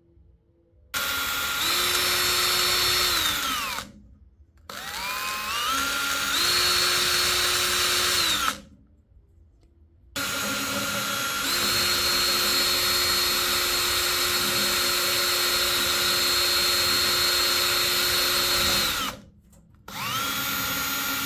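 Power drill boring through a 5 mm acrylic (plexiglass) sheet in four runs. At each start the motor whine winds up and holds steady, then drops away as it stops. The third run is the longest, about eight seconds.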